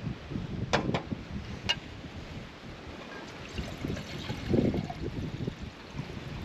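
A few sharp metal clinks from camp cookware (titanium canteen and cook pot) being handled, then water being poured from the canteen into the pot, with wind rumbling on the microphone.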